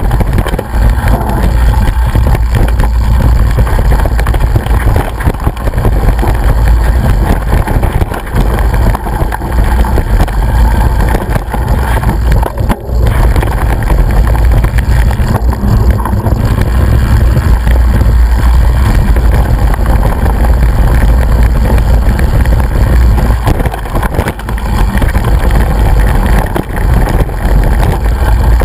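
Loud, steady wind buffeting on the microphone of a camera travelling fast down a rough woodland trail, mixed with the rumble and rattle of jolting over the ground.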